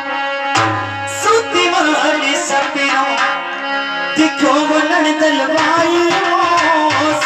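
Live Indian folk devotional music: a dholak beating under a sustained melody instrument, with steady held notes from about half a second to four seconds in.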